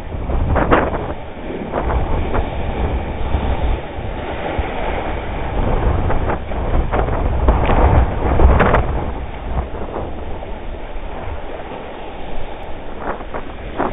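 Rough surf breaking against rocks and whitewater rushing around a kayak, mixed with heavy wind rumble on the microphone. The noise swells in several surges, the loudest crash about eight and a half seconds in.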